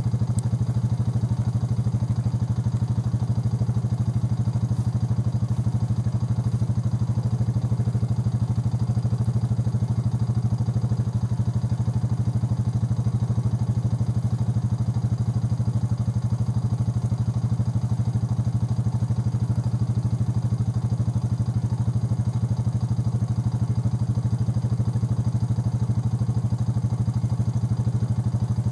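An engine idling steadily: a low, even hum with a fast regular pulse.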